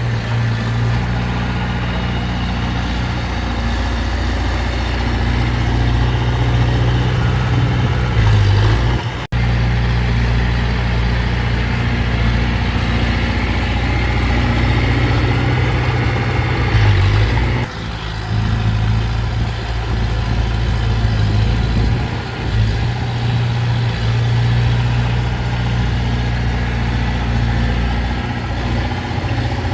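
Heavy diesel engine of earth-moving machinery running steadily, with a brief break about nine seconds in and a change in its note near eighteen seconds.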